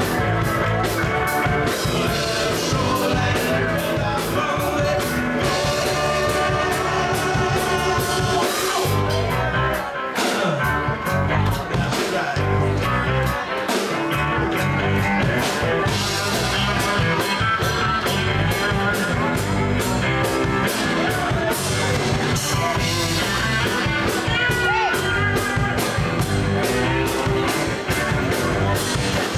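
Live rock band playing through a PA, with a woman singing over drums, electric guitar and bass guitar. The low end drops out briefly twice in the middle before the full band comes back in.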